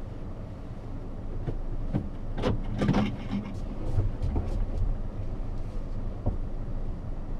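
Car engine and tyres rumbling low as the car creeps along, heard from inside the cabin. A cluster of clicks and knocks about two and a half seconds in, with a few more later.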